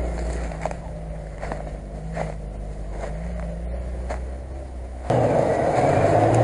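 Lada Niva engine working steadily as it climbs a muddy track, heard from behind, with a few sharp clicks. About five seconds in, it cuts abruptly to a louder, closer Toyota Land Cruiser 100 engine revving up as it drives through the mud.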